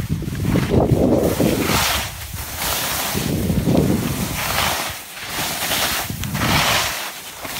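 Wind buffeting the microphone while skiing downhill, with the scraping hiss of skis carving on snow swelling and fading with each turn, about every one and a half to two seconds.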